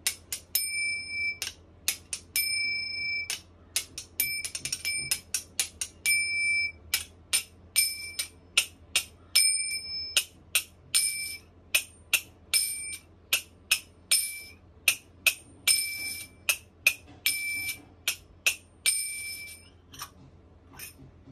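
A pair of kartals, small hand cymbals used in kirtan, struck together in a rhythm. Short damped clinks alternate with open strikes that ring on a steady high tone for up to about a second, the strikes growing denser in the middle.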